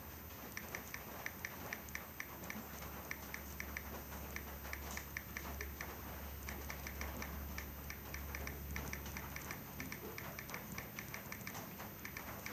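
Keyboard key-press click sounds, enabled in the settings, playing as someone types. The short, high clicks come in quick, irregular runs of several a second with brief pauses.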